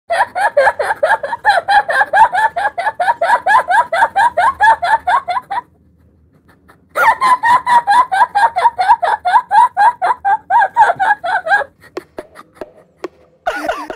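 A woman's high-pitched puppy-like laugh: rapid yelping pulses, about five a second, in two long bouts broken by a pause of about a second some six seconds in.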